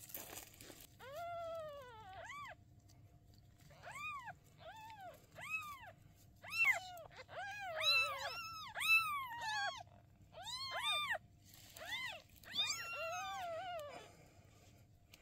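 Newborn kittens crying: a string of short, high-pitched, arching mews, more than a dozen, with several overlapping in the middle.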